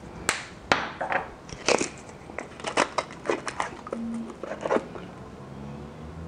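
Spice containers being handled and opened next to the pan: a string of irregular clicks, taps and crinkly rattles, the sharpest near the start, dying away after about five seconds.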